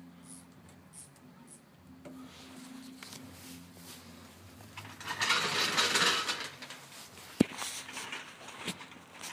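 Footsteps crunching on gravel, loudest for about a second and a half midway, followed by a single sharp click. A faint low hum sits underneath in the first half.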